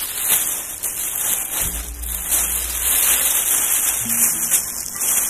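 Background music: a dense, hissing rain-like wash over a few low, held bass notes.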